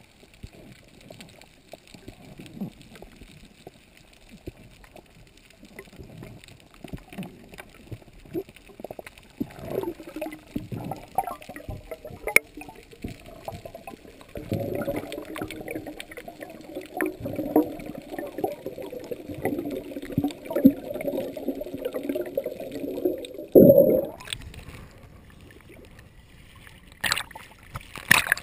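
Underwater ambience heard through a camera's waterproof housing during a freedive: faint crackle and small clicks, then a long stretch of gurgling bubbles. A loud bubbly burst comes near two-thirds of the way through, and two sharp splashes near the end as the camera breaks the surface.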